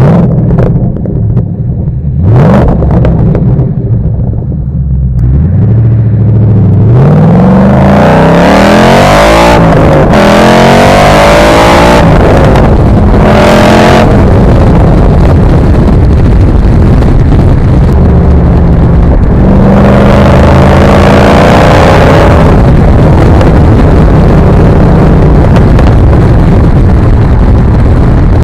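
2012 Ford Mustang Boss 302's 5.0-litre V8 through its uncorked side pipes and SLP Loudmouth axle-back exhaust, under hard acceleration: a low rumble at first, then revs climbing through the gears with brief drops at the shifts, and climbing again later on.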